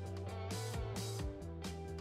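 Background music with a steady beat, led by guitar.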